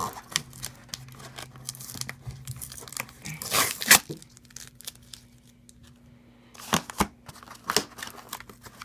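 Cardboard packaging being handled and pulled apart: scraping, rustling and crinkling, with louder scrapes about three to four seconds in and again near seven seconds.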